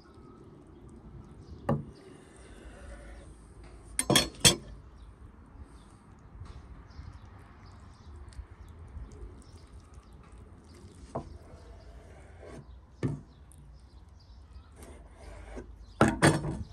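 Scattered knocks and taps on a wooden chopping board as beef liver is laid and wrapped in caul fat by hand: two sharp knocks about four seconds in, a few lighter ones later, and a quick cluster of knocks near the end.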